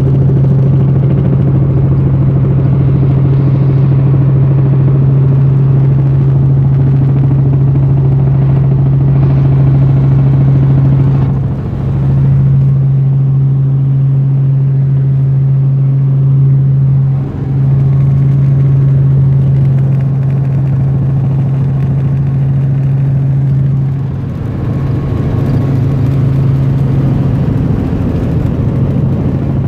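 Helicopter engine and rotor noise: a loud, steady low drone that dips briefly three times.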